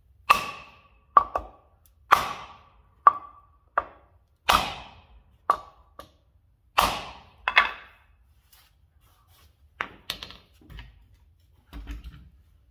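A hammer striking a 2x4 wood block to drive a bushing into a leaf-spring eye: about a dozen sharp knocks, each with a short ring, at an uneven pace of roughly one a second. There is a pause before two final blows and a duller knock near the end.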